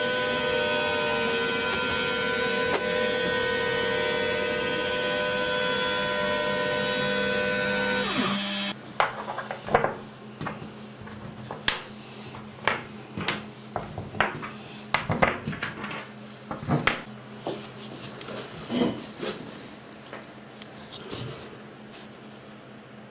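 An electric power-tool motor runs steadily with a whine for about eight seconds, then winds down and stops. After that come a series of sharp clicks and knocks, like parts and tools being handled, over a low steady hum.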